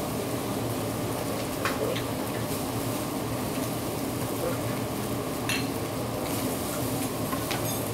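Fried rice sizzling on a teppanyaki griddle as it is stirred, with a few sharp clicks of metal utensils against the steel griddle.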